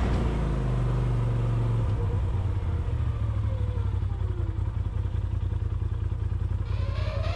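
Side-by-side UTV engine running with a steady low rumble, its pitch dropping in the first second. Music comes in near the end.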